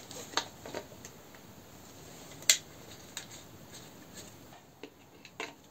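Scattered clicks and taps of hands handling a 3D-printed plastic tractor dashboard panel and its switches and wiring, with one sharp click about two and a half seconds in.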